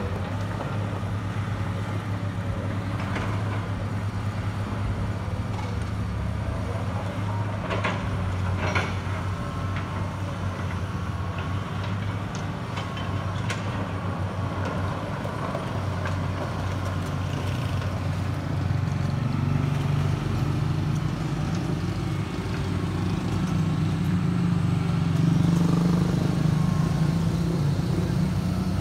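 Crawler excavator's diesel engine running steadily, its note shifting and swelling in the second half as it works. A few sharp knocks stand out over it.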